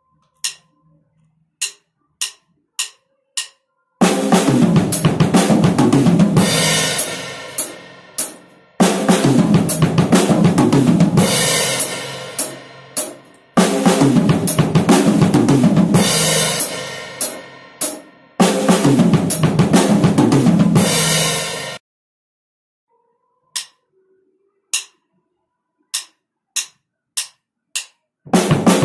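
Acoustic drum kit at 100 bpm playing fast fills. After a few evenly spaced clicks, it plays four passages of a few seconds each across snare, toms, bass drum and cymbals, with a short break between them. A second run of count-in clicks comes near the end, and the full kit starts again just before the end.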